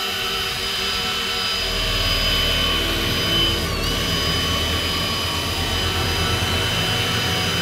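Cordless drill spinning an HVAC fan blade at full speed in a homemade rubber-cement spiderweb gun: a steady high motor whine over a rush of air from the blade. The pitch dips briefly about halfway through.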